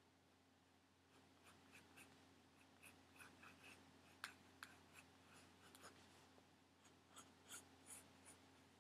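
Pencil drawing on a paper drawing pad: faint, short, irregular scratchy strokes as the eyes are sketched in, with one sharper stroke a little past four seconds in.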